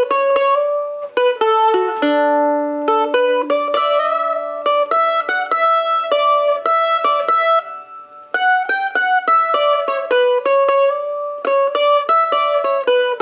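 Background music: a bright melody of quickly picked notes on a plucked string instrument such as a mandolin or ukulele, with a short drop in level a little past halfway.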